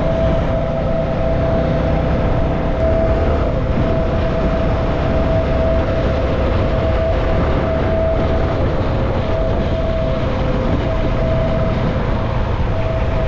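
CFMoto NK 250 motorcycle underway at a steady speed: wind rushing hard over the microphone and the engine running, with a steady high hum throughout.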